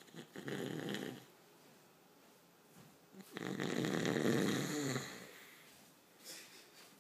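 Snoring: two snores, a short one of about a second just after the start and a longer, louder one of about two seconds some three seconds in.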